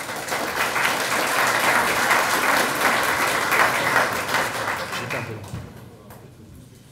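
Audience applauding: a dense patter of many hands clapping that swells at once, holds for about five seconds, then dies away.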